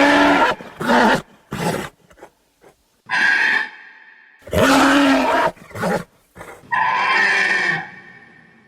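Pachycephalosaurus creature sound effect: a string of roaring, grunting calls that start and stop abruptly. Several short calls in the first couple of seconds are followed by longer calls about halfway and near the end, the last one trailing off.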